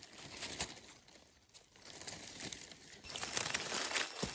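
Dry fallen leaves crackling and rustling as a hand brushes through the leaf litter to uncover a mushroom. It grows louder about three seconds in.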